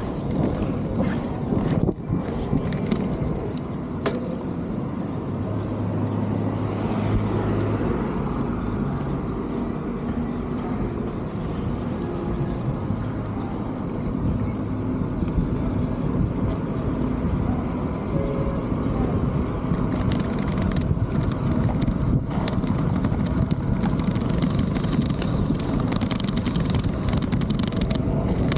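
Steady low rumble of city traffic and road noise heard from a moving bicycle. A motor vehicle's engine hum stands out briefly a few seconds in.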